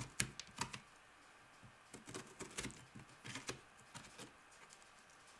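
Metal spoon scraping seeds and stringy fibre out of a halved butternut squash, a run of faint, irregular scrapes and small clicks.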